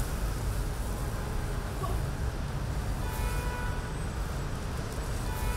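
City street traffic: a steady low rumble of passing vehicles, with a faint held tone for a couple of seconds in the second half.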